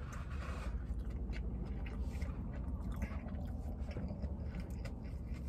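A person chewing a mouthful of vegan burger with the mouth closed: many small, irregular wet clicks and squishes over a low steady hum.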